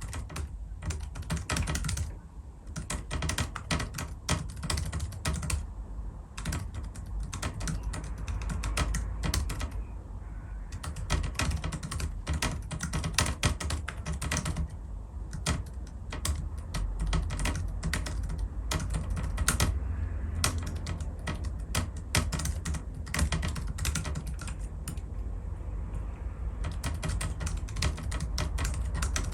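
Fast, steady typing on a Rapoo 9000M mobile keyboard: dense runs of key clicks broken by brief pauses, over a low hum.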